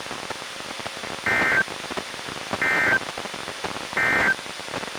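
Three short bursts of the warbling two-tone SAME data signal from a NOAA Weather Radio broadcast, evenly spaced a little over a second apart over steady receiver hiss: the Emergency Alert System end-of-message code closing the flash flood warning.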